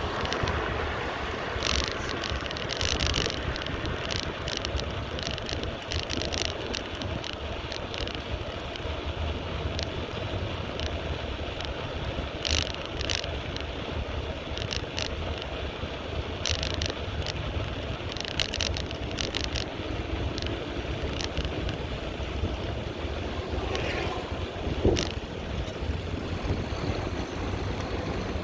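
Bicycle ride: wind rushing over the microphone with a steady low rumble, and frequent short clicks and rattles from the bike over the road. A louder passing sound swells near the end.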